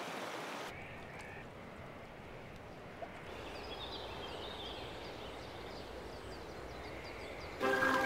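Steady rush of a flowing river, with faint, short, high bird chirps repeating from about three seconds in. Music comes in just before the end.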